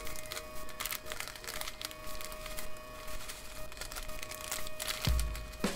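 Strip of small plastic bags of diamond-painting drills crinkling as it is handled and turned over, in irregular crackles, with a low bump near the end.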